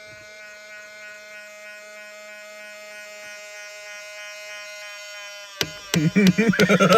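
2000 Ford Explorer power side mirror motor buzzing with a steady electric tone. About five and a half seconds in, a much louder, wavering noise with sharp clicks breaks in.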